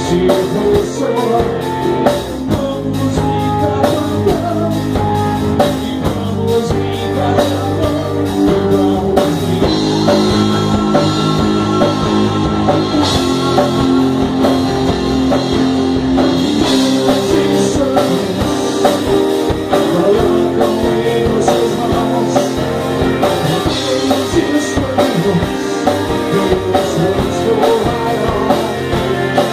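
Rock band playing live in a rehearsal room: electric guitars, bass guitar and drum kit, with a man singing into a microphone over them.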